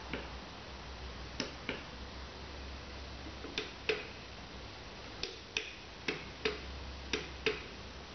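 Push button on a rechargeable LED road flare clicking as it is pressed again and again to step through its flash modes. There is a series of sharp clicks, mostly in pairs about a third of a second apart, over a faint low hum.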